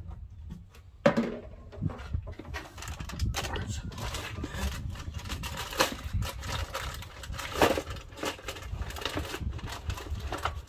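Heavy-duty aluminium foil crinkling and rustling as a foil-wrapped package is lowered and pressed down into a plastic cooler, after a single knock about a second in.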